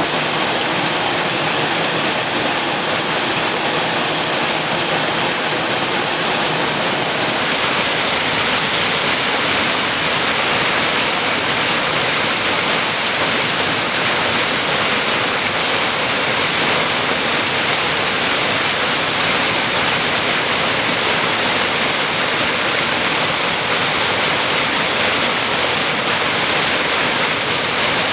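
A waterfall rushing steadily, a loud, even hiss of falling water.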